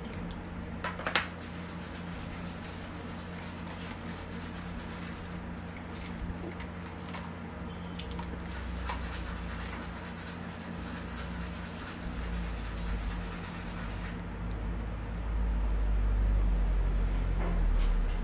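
Paintbrush working paint on canvas: faint scratching and rubbing strokes over a steady electrical hum. A low rumble grows louder in the last third.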